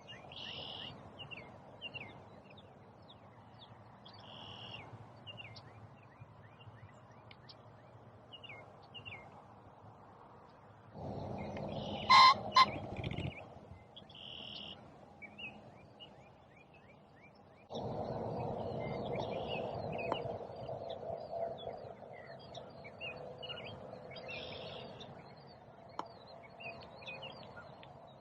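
Small songbirds chirping and singing in spring woods, with one loud, short two-part call from a larger bird about twelve seconds in. A steady low rushing noise comes in after about eighteen seconds.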